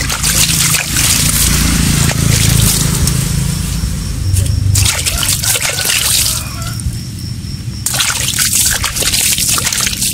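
Running water pouring and splashing over a finned metal motorcycle engine part as it is rinsed and rubbed by hand, spilling into a bucket below. This rinses off leftover dish soap that was used to mask the raised lettering for painting. The splashing thins out about six and a half seconds in and comes back strongly about a second later.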